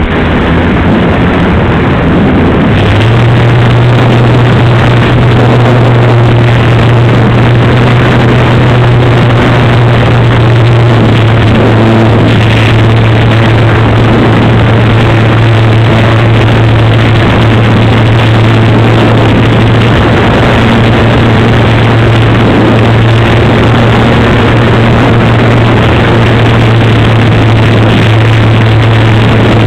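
Dynam Super Cub RC plane's electric motor and propeller heard from a camera on the airframe in flight: a loud, steady low hum that sets in about three seconds in, over dense rushing airflow noise on the microphone.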